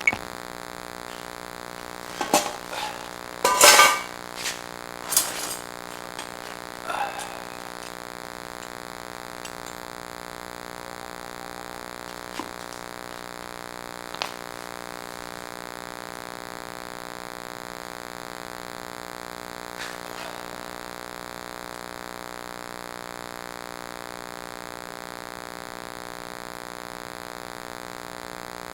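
Steady electronic buzz made of many stacked fixed tones, a fault noise from the camera's audio. A few sharp knocks and scrapes come between about two and seven seconds in, the loudest about four seconds in.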